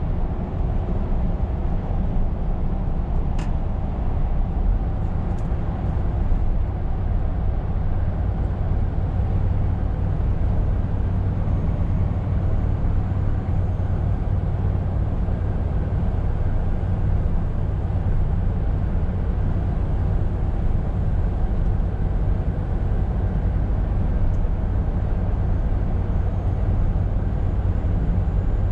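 Scania R520 truck driving along: a steady low engine rumble under a constant wash of road and tyre noise.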